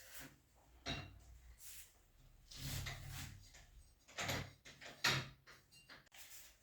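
Kitchen cupboard drawers and doors being handled: a run of about five soft slides and knocks, the sharpest about five seconds in.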